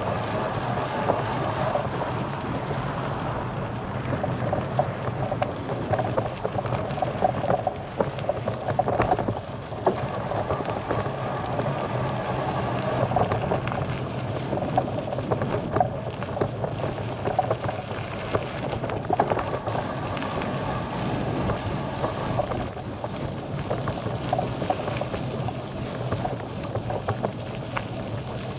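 Bicycle ride along a road: steady rolling and wind noise, with frequent small rattles and knocks throughout.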